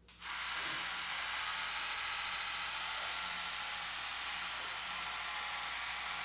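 Electric split-end hair trimmer (a 'corte bordado' machine) switched on and whirring steadily as it is drawn along a strand of hair, trimming off split ends.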